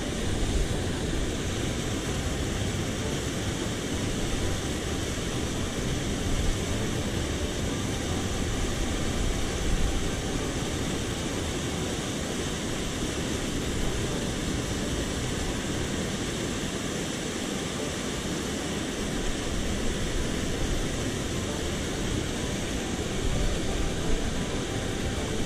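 Steady rush of flowing water from a mountain stream.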